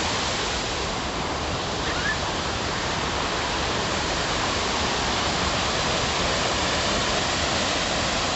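Waterfall rushing: a steady, dense roar of falling water.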